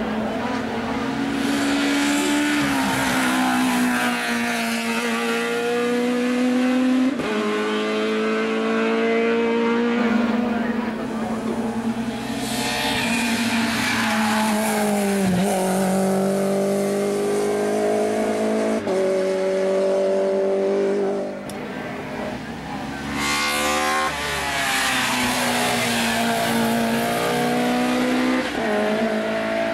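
Race car engines at full throttle on a hillclimb, each revving up through the gears with a sharp drop in pitch at every upshift. The cars pass one after another.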